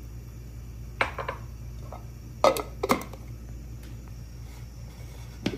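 A handful of short, sharp plastic knocks and clicks, about four, as the lid and bowl of an electric chopper are handled and fitted, over a low steady hum. The chopper's motor itself is not heard running.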